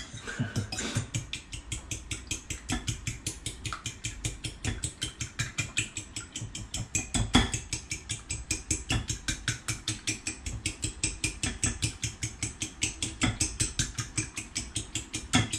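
A fork beating raw eggs in a bowl, its tines clicking against the bowl in a quick, even rhythm of about five strokes a second.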